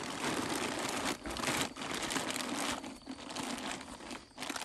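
Black plastic tarp crinkling and rustling in irregular bursts as it is pressed and tucked by hand over the mouth of an iron pipe.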